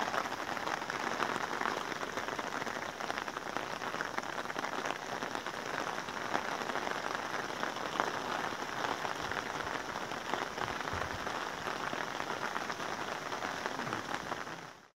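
Steady rain falling through the trees, a dense patter of drops, fading out just before the end.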